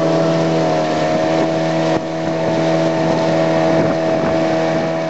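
Outboard motor of a long wooden river canoe running at a steady speed, one unchanging engine drone, with water rushing and splashing past the hull.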